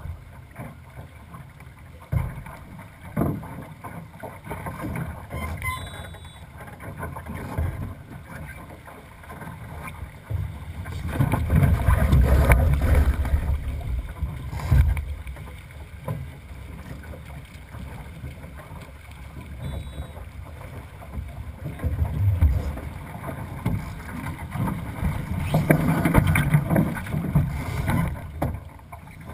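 Wind on the microphone and water rushing along a small sailing dinghy's hull as it sails, swelling louder twice, around the middle and near the end, with a few sharp knocks on the boat.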